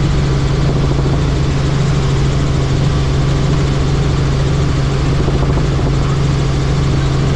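Helicopter in flight: steady rotor and engine noise with a strong low hum, unchanging throughout.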